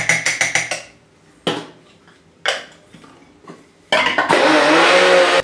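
Small electric blade grinder grinding chopped almonds into fine almond meal. In the first second the metal grinding cup rattles and clicks as it is twisted on the base, and a couple of single knocks follow. About four seconds in, the motor starts and runs loudly and steadily, grinding.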